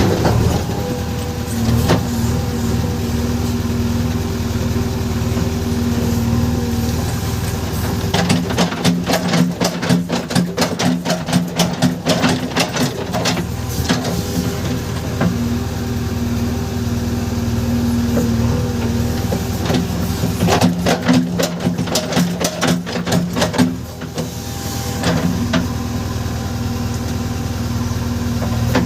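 JCB 3DX backhoe loader's diesel engine running steadily, with two spells of rapid clattering knocks, from about eight to fourteen seconds in and again from about twenty to twenty-four seconds in.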